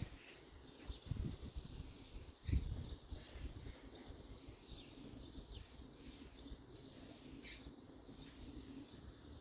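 Quiet rummaging while searching for screws: scattered light knocks and clicks, the loudest a knock about two and a half seconds in, with faint bird chirps in the background.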